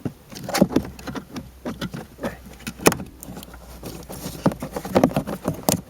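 Plastic clicks and rattling of a 2004 Volkswagen Jetta's tail-light bulb socket assembly being unclipped at its two squeeze tabs and worked loose from the light housing. There are many small irregular clicks and knocks, the sharpest about three seconds in.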